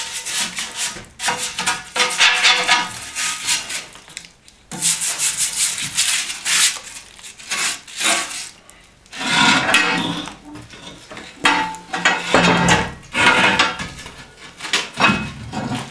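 Scraping ash and soot out of the inside of a steel stove by hand, in repeated rough strokes with short pauses.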